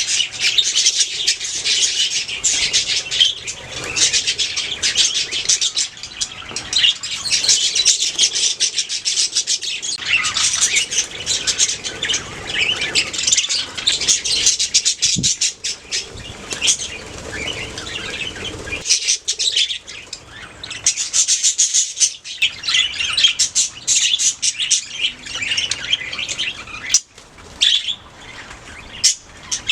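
A colony of budgerigars chattering and chirping all at once, a dense, continuous mass of quick high calls that thins out briefly now and then.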